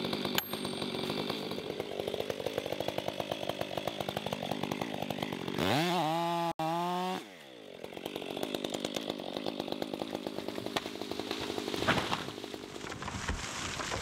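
Stihl 500i two-stroke chainsaw idling with a rapid, steady putter. Just after the start there is one sharp metallic strike of an axe on a felling wedge. About six seconds in, the saw revs up and drops back to idle; near the end comes a crack and a rushing crash as the oak falls.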